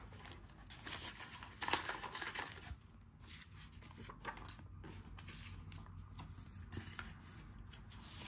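Paper inserts and cards rustling as they are handled and put into a cardboard box, with light scrapes and taps of the box. The rustling is loudest in the first two and a half seconds, then quieter.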